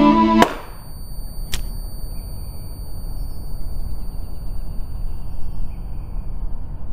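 Bowed-string music cuts off half a second in, leaving wind buffeting the microphone with a low, uneven rumble. There is a single sharp pop about a second and a half in.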